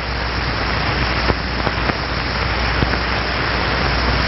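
Rushing airflow of a small laboratory wind tunnel, a steady hiss getting slowly louder as the wind speed is turned up.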